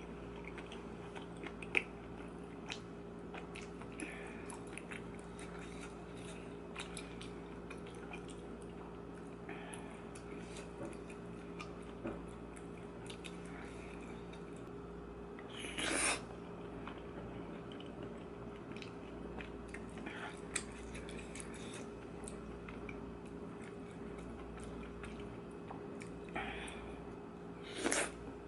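Close-miked chewing of Yeopgi tteokbokki, chewy wheat rice cakes in spicy sauce, with many small wet mouth clicks. There are two louder noisy bursts, one about halfway through and one near the end, over a steady low hum.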